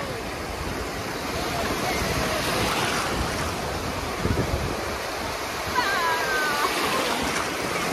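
Sea surf washing in the shallows, a steady rushing wash of small breaking waves, with a wave breaking and foaming close by about six seconds in.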